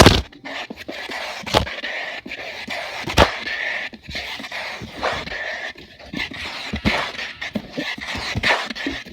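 A dog making a string of irregular noisy sounds, with sharp clicks about one and a half and three seconds in.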